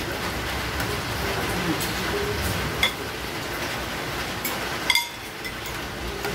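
Sliced pork belly sizzling in a frying pan on a portable gas stove, a steady hiss of spitting fat, with a few clinks of tongs and cutlery on plates.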